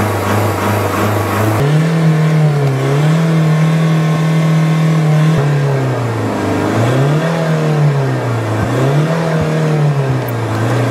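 Mercedes car engine revved hard while standing, heard from inside the cabin: it runs at a lower steady note for about a second and a half, then jumps to high revs and holds there for about four seconds. After that the revs are let fall and pushed up again several times, rising and falling every second or two as the accelerator is pumped.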